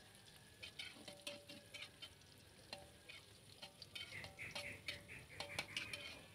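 Metal spatula scraping and tapping against a wok while sliced shallots and garlic are stir-fried in oil. The wok rings briefly after some strokes, over a faint sizzle. The cook keeps the food turning so it does not burn.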